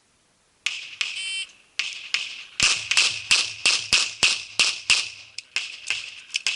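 A rapid string of pistol shots, about three a second, starting about two and a half seconds in after a brief quiet and a short noise.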